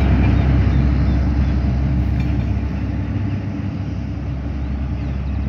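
A rail track maintenance truck's diesel engine running as it hauls a loaded flat wagon along the track, a steady low rumble fading as the train moves away.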